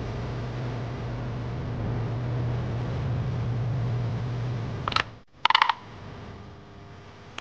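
Steady low machine hum that stops about five seconds in, followed by a sharp click and a short rattle of clicks.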